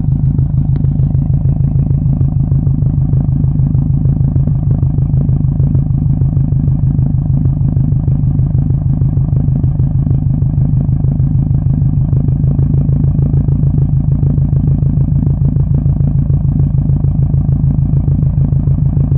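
Exhaust of a 2007 Subaru WRX's turbocharged flat-four engine running steadily at an even speed with a regular pulsing beat, recorded for a possible misfire that the owner suspects.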